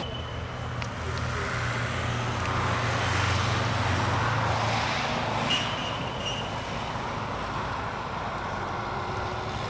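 Road traffic: a car passing on the street, its engine hum and tyre noise swelling to their loudest about three to five seconds in, then easing off.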